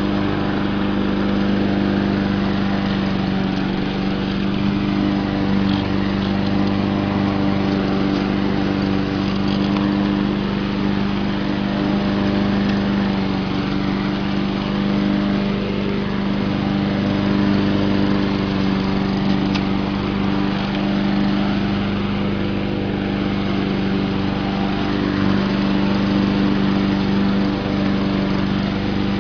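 Poulan Pro walk-behind lawn mower's single-cylinder Honda overhead-cam engine running steadily while mowing grass.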